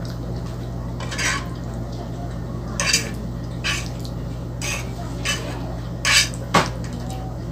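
A metal fork scraping and clinking against a frying pan as creamy pasta is stirred and scooped. There are about seven short strokes, the sharpest near the end, over a steady low hum.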